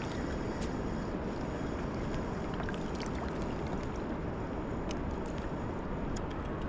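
Steady rush of the fast-flowing Niagara River, an even, unbroken roar of water, with a few faint ticks.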